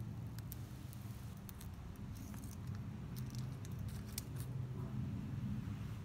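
Thin protective plastic film being peeled off a watch pager's screen by hand: light crinkles and small clicks, thickest about two seconds in and again around three to four seconds, over a steady low hum.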